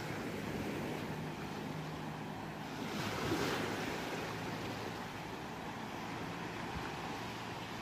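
Ocean waves washing on the shore in a steady rushing surf, with one wave surging up and falling back about three seconds in.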